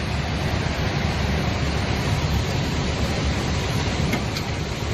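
Steady rushing road and wind noise of a moving car.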